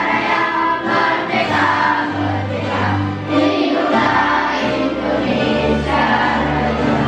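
A group of voices singing a song together over musical accompaniment, like a choir.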